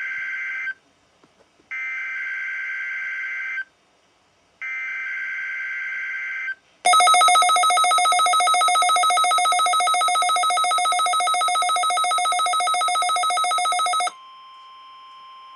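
NOAA Weather Radio alert test on a Midland WR400: three roughly two-second bursts of the SAME digital header's warbling data tones, then a loud rapidly pulsing electronic alert beep for about seven seconds. About fourteen seconds in this gives way to a quieter steady single-pitch alert tone.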